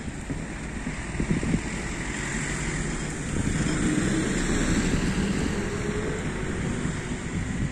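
A vehicle passing, its noise swelling and fading in the middle, over low rumbling wind on the microphone.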